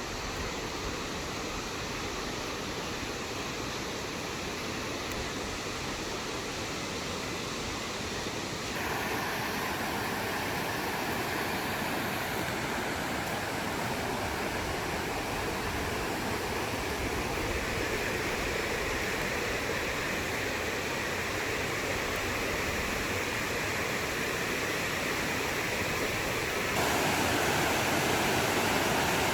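Rushing water of a mountain stream pouring over rocks into a pool, a steady full rush that jumps louder twice, about a third of the way in and again near the end.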